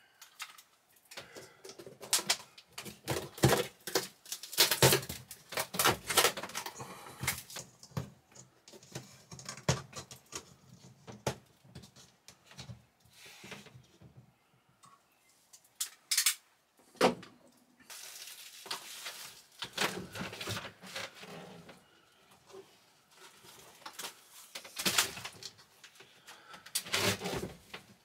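Hands tearing and pulling wet ceiling paneling and pink fiberglass insulation out of an RV roof opening: a long run of irregular crackles, snaps and scrapes, with louder bursts about two-thirds of the way through and near the end.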